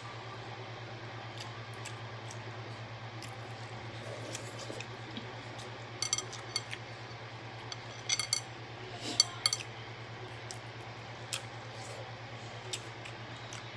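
Mussel shells clicking and clinking together as they are handled and eaten, in a few short clusters in the second half, over a steady low hum.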